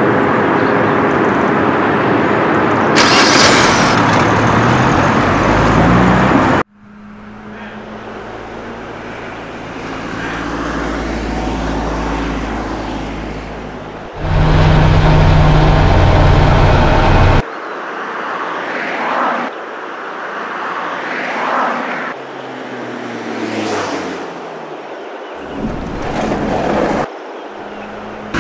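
Car engine sounds edited together in several pieces with abrupt cuts: an engine revving and running, its pitch climbing in the first few seconds and later sliding down.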